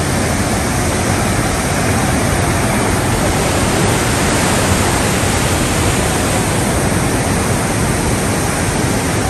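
Heavy floodwater rushing out through the gates of a river barrage: a loud, steady rush of churning water with no let-up.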